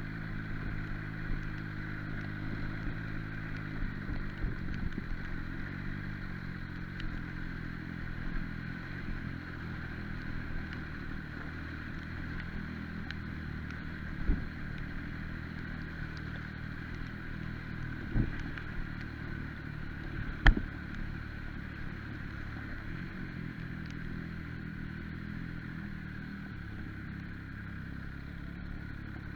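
MV Agusta Brutale 800's three-cylinder engine running at a steady speed, its pitch holding even, with a few sharp knocks, the loudest about twenty seconds in.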